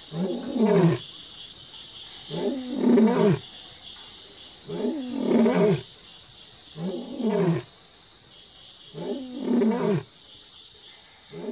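African lion roaring in a bout of deep roars, each about a second long and falling in pitch, repeated about every two seconds.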